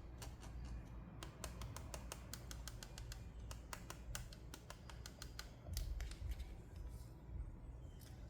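Many light, sharp clicks and taps, coming in quick runs: small hard plastic toy pieces and packaging being handled during a doll playset unboxing.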